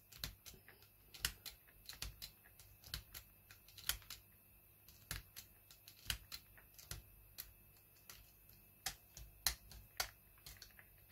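Irregular clicks, about one or two a second, of a headphone jack plug being pushed in and out of the Dansette FM stereo cassette player's headphone sockets. The plug is being worked in the sockets to clean their contacts after a squirt of contact cleaner.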